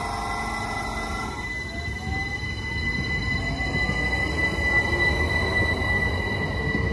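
Great Northern Class 387 electric multiple unit pulling away from the platform. Its traction motors whine up slowly in pitch as it gathers speed, over a growing rumble of wheels on rail, with a steady high tone joining about two seconds in.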